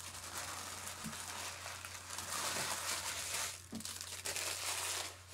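Trading-card pack wrappers crinkling and tearing as packs are opened and handled, in two stretches with a short pause between them.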